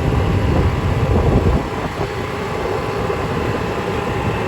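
Wind rumbling on the microphone with the road and running noise of a small, slow open vehicle; the low rumble is heavy for about the first second and a half, then eases to a steadier noise.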